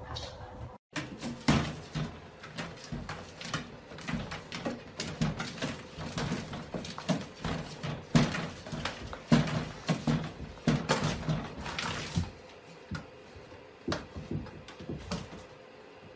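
A golden retriever puppy scrabbling its claws on a bathtub and giving short whimpers as it struggles over the rim, with the echo of a small bathroom. The noises thin out to a few faint scratches near the end.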